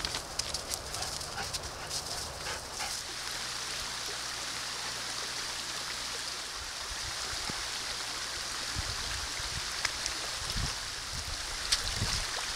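Running water from a snow-banked creek, a steady hiss. Scattered crunching footsteps come in the first three seconds, and a few low thumps near the end.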